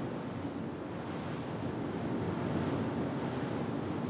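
Steady rushing of wind and sea, an even noise with no distinct events.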